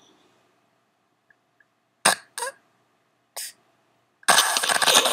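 A sleeping baby snorting and coughing: two short sharp bursts about two seconds in, a brief one a second later, then a long, loud noisy breath near the end.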